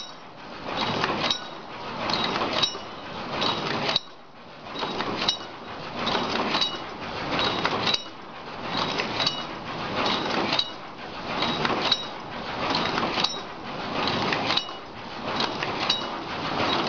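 Automatic paper cup forming machine running, cycling with a sharp metallic clack with a brief ring about every two-thirds of a second over a continuous mechanical clatter.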